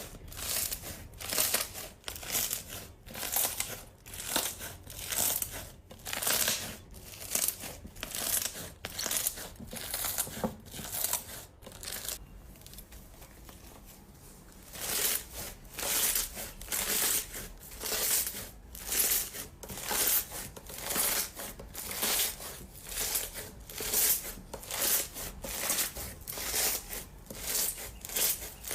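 Slime being squeezed and pressed by hand, giving a repeated crackling, squishing sound about one to two times a second, with a pause of a couple of seconds partway through.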